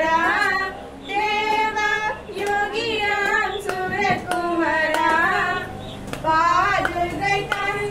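Two young women singing a devotional bhajan together into a microphone, with held, wavering notes, and sharp claps keeping time about twice a second.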